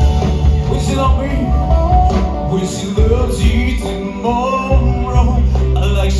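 Live band music through a PA: a male singer over electric guitar, bass guitar, keyboard and a drum kit with cymbals. A strong steady bass line carries the song.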